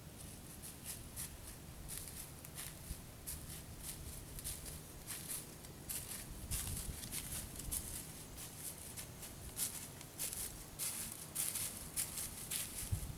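White-tailed deer walking through dry fallen leaves: irregular light crunching steps, coming more often in the second half.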